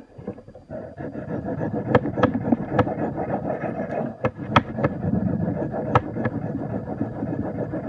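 A knife blade stroked repeatedly across an oiled sharpening stone of a Smith's Arkansas Tri-Hone, a continuous rough scraping at the fine polishing stage of the edge, with sharp clicks here and there as the blade knocks on the stone.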